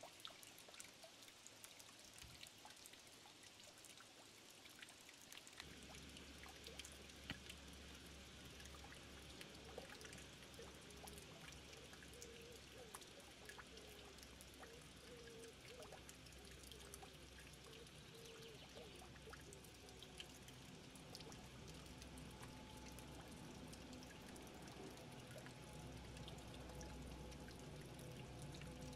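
Small solar-powered fountain's water trickling and splashing faintly, with many little drips. A low hum comes in about five seconds in.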